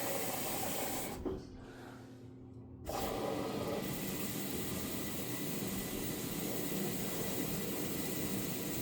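An LG washing machine fills with water at the start of its tub-clean cycle: a steady hiss of water rushing in through the inlet. The hiss stops about a second in and starts again a couple of seconds later.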